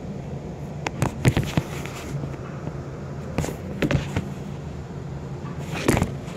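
A steady low hum with a scatter of short clicks and knocks; the loudest knocks come near the end, as the phone filming is moved.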